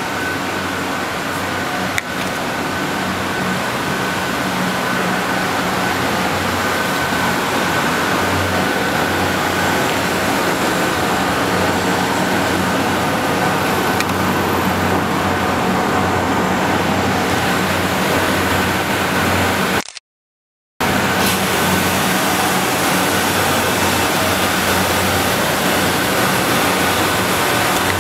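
Steady machinery hum over an even noise bed, with a few constant tones. It cuts out completely for about a second about two-thirds of the way through.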